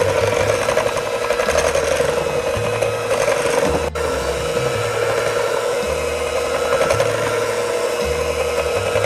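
KitchenAid electric hand mixer running at a raised speed, its two beaters whipping thick cream cheese icing in a glass bowl: a steady motor whine with the churning of the beaters through the icing.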